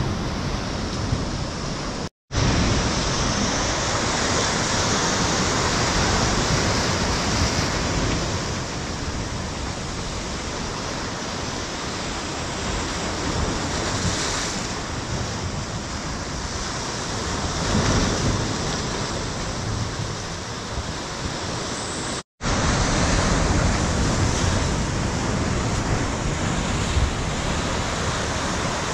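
Ocean surf breaking and washing over shoreline boulders, a steady rushing that swells and eases as each set of waves comes in. The sound drops out for an instant twice, about two seconds in and again about 22 seconds in.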